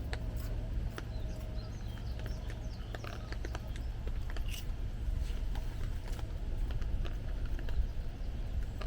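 Raindrops tapping irregularly in scattered drips over a steady low rumble.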